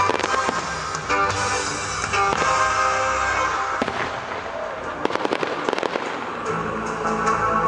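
Fireworks going off over music: single bangs near the start, about two and four seconds in, then a rapid cluster of crackles about five to six seconds in.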